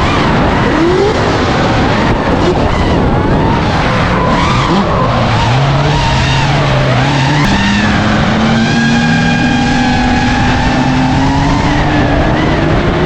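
Several drift cars' engines revving at high load with tyre squeal, their pitches rising and falling and overlapping. From about eight seconds in, one engine note climbs steadily.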